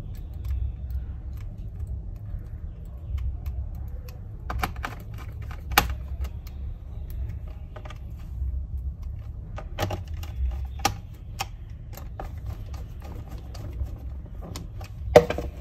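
Small irregular clicks and light knocks of a screwdriver and screws on a laptop's plastic base as the base screws are driven in, over a low steady hum.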